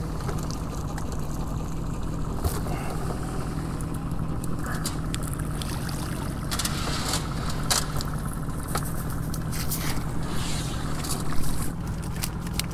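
A cast net is hauled out of the water over the side of an aluminium boat and emptied into a bucket. Water pours and drips off the mesh, and scattered sharp clicks and clinks come from the net and its weights, over a steady low hum.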